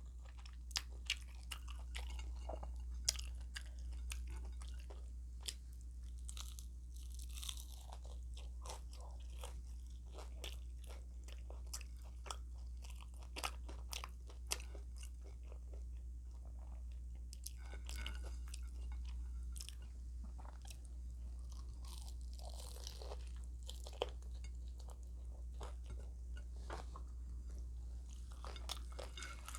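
A person chewing and crunching food close to the microphone, with many short sharp clicks, over a steady low hum.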